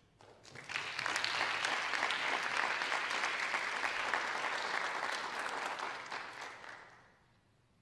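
Audience applauding. The clapping starts about half a second in, holds steady, and dies away near the end.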